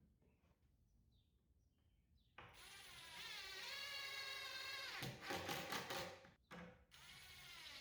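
A power drill whines up after a near-quiet start and runs steadily, driving a screw into the cabinet plywood, with a rattle as the screw seats. It stops briefly and then starts again.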